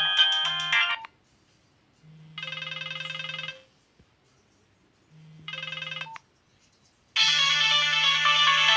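Nokia 101 mobile phone playing its ringtones through its small speaker. A polyphonic melody stops about a second in. Two short warbling tones follow, a few seconds apart, and a new ringtone melody starts near the end.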